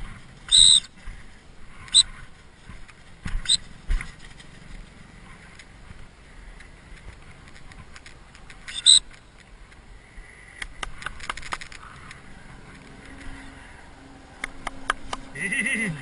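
A few short, high blasts on a dog-training whistle over the first nine seconds, each a single clear tone. Scattered sharp clicks follow later.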